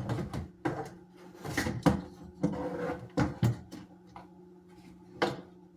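A spice rack being pushed and fitted into a kitchen cabinet: a run of sharp knocks and scrapes against the cabinet shelf and walls, about half a dozen knocks spread irregularly over the few seconds.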